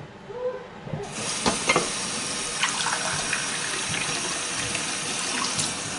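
Cold-water kitchen tap running into a stainless steel sink as a teacup is filled. The tap comes on about a second in and then runs steadily, with a few small splashes.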